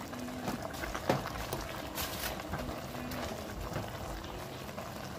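Pot of collard greens simmering, with a steady bubbling hiss as the greens are stirred with a plastic spoon; a sharp click about a second in and another near two seconds.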